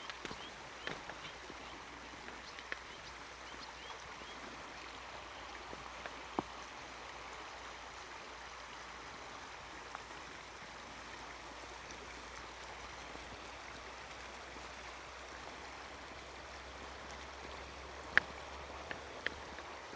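Steady rushing of a stream or brook flowing, with a few scattered sharp clicks or taps, the loudest one near the end.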